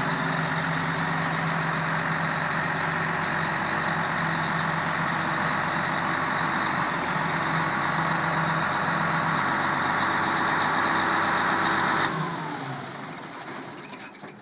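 Komatsu WA500-3 wheel loader's six-cylinder diesel engine running steadily. About twelve seconds in, its pitch falls and it winds down, going much quieter.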